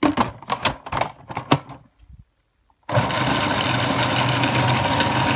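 Plastic clicks and knocks as the food processor's lid is fitted, then a short pause. About three seconds in, the food processor's motor starts and runs steadily, blending the pancake batter.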